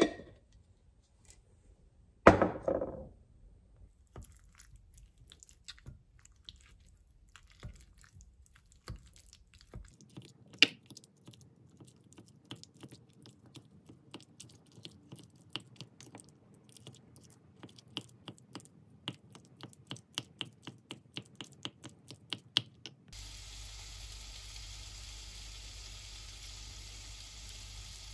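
Metal fork tapping and scraping in a glass bowl while mashing avocado with mayonnaise: a long run of short, irregular clinks, about two a second. Near the start a squeezy mayonnaise bottle gives a loud wet squirt.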